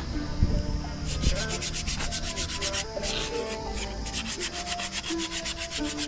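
A motorcycle rear disc brake pad being scraped by hand with a tool: quick, rasping strokes, about five a second, starting about a second in and running until near the end. The pad's friction surface is being dressed to cure a loudly squealing rear disc brake.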